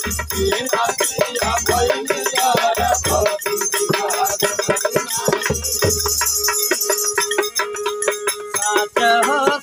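Bhojpuri nirgun bhajan band music: an electronic keyboard holds a melody while a hand-held jingling clapper shakes on every beat and a dholak thumps low beats, the low drum dropping out about two-thirds of the way in.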